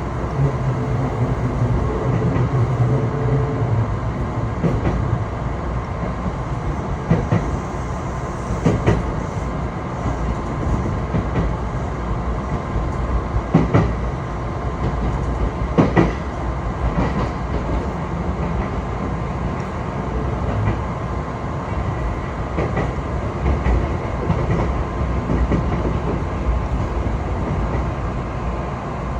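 A passenger train running along the track, a steady rumble with a few sharp clacks of the wheels over rail joints, the loudest about halfway through.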